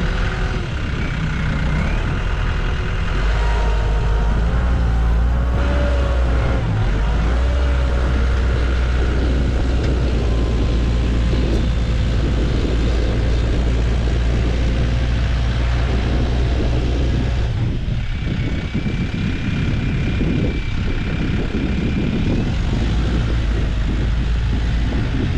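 Skid steer's diesel engine running under work, its note shifting a few times, with a thin high whine for a few seconds late on.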